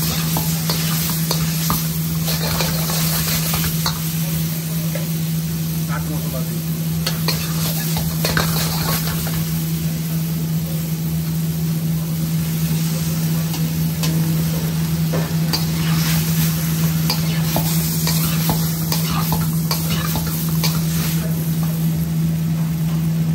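Vegetables sizzling in a hot carbon-steel wok as a metal spatula stirs and scrapes them, with many short clinks of metal on the pan. A steady low hum runs underneath.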